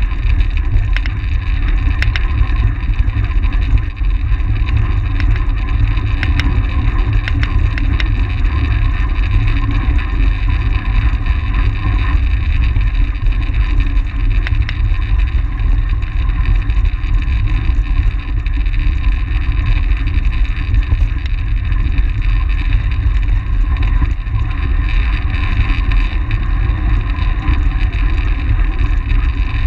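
Wind buffeting the microphone of a camera mounted on a track bike ridden at race speed: a steady, loud low rumble with a faint hiss above it and a few light ticks in the first several seconds.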